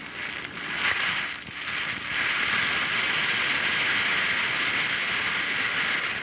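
Acorns pouring out of an upended cloth sack onto the floor in a continuous rattling rush. There is a short spill about a second in, then a steady stream from about two seconds in until it tails off at the end.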